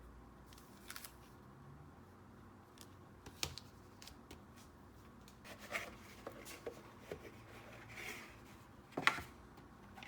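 Paper and packaging handled by hand: scattered soft rustles and light taps, with the sharpest tap about nine seconds in.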